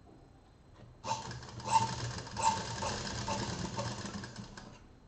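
Sewing machine running, stitching through cotton fabric; it starts about a second in and stops just before the end.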